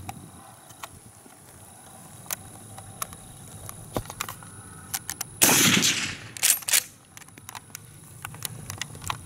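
A single rifle shot from a Schmidt-Rubin 1889 straight-pull rifle, ringing out for most of a second, followed by two sharp metallic clacks of the straight-pull bolt being cycled. Faint scattered clicks sound throughout.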